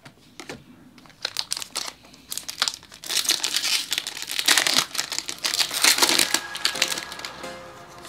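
Foil Pokémon booster pack wrapper being torn open and crinkled by hand: a dense run of crackles and rips, loudest through the middle.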